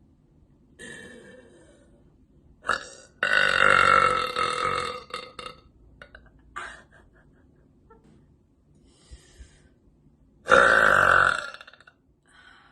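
A woman's long, loud burps: the first starts about three seconds in, lasts about two seconds and breaks up into short stutters at its end. A second, shorter loud burp comes near the end, with faint small sounds between the two.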